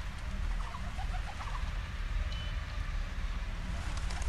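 Outdoor ambience: a steady low rumble with short bird chirps now and then.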